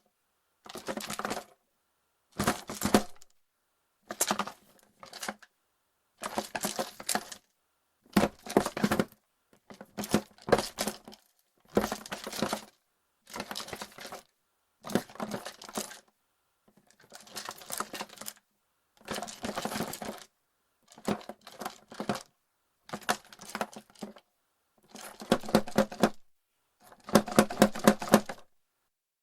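Plastic game pieces rattling inside a wooden board game box, shaken in short bursts about every two seconds with silence between.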